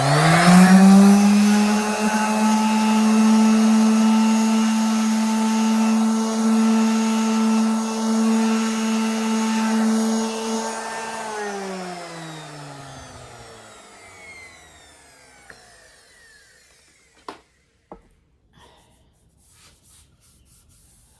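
Electric orbital sander starting up with a rising whine, running steadily for about ten seconds while sanding down the filled handle holes of a drawer front, then switched off and winding down over several seconds. A few light knocks follow near the end.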